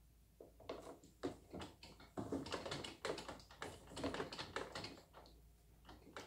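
Quick, irregular taps and knocks on a plastic baby high-chair tray, dense through the middle and thinning out near the end.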